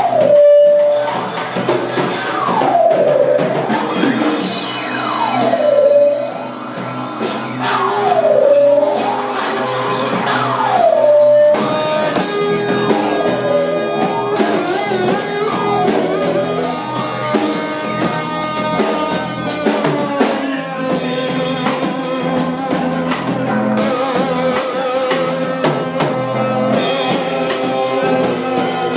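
Live improvised experimental music: a drum kit played with busy drum and cymbal strokes. Over it, a pitched sound dips and swoops back up in pitch about every two and a half seconds, then gives way about halfway through to a long held tone.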